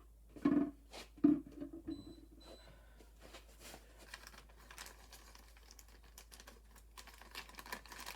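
Hands working electrical wires and plastic wire caps: crinkling and small scattered clicks, thickening near the end. Two short, louder knocks come about half a second and just over a second in.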